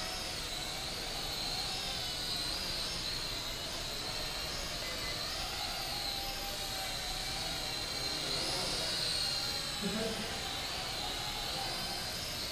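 Small toy quadcopters, a Hubsan X4 and a Syma X5C, flying: a steady high propeller whine whose pitch wavers up and down as the motors speed up and slow down.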